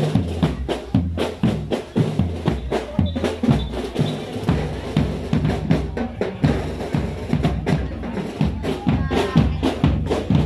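Drums playing a fast, busy beat of many hits a second, with music and a low bass line underneath.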